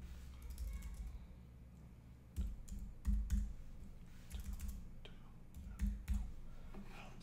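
Computer keyboard keys tapped in an irregular run of separate keystrokes while a phone number is typed into a dial field.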